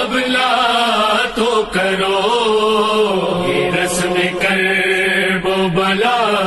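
A man chanting an Urdu noha (lament poem) into a microphone, drawing its lines out in a long, wavering melodic phrase over a steady low tone.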